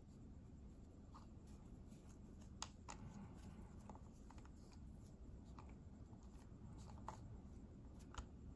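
Faint, scattered small clicks of a metal valve key working the release valve as it is screwed back into a Western Arms Beretta gas airsoft magazine, a handful of separate ticks over otherwise near silence.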